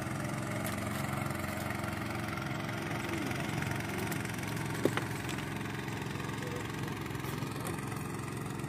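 An engine running steadily with an even hum, with a single sharp click about five seconds in.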